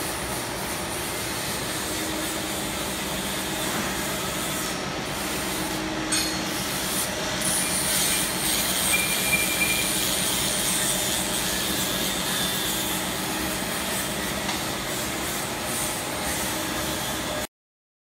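Steady machinery din of a metal-working factory floor, a continuous rushing noise with faint tones and light rubbing or squealing touches in it. It cuts off suddenly near the end.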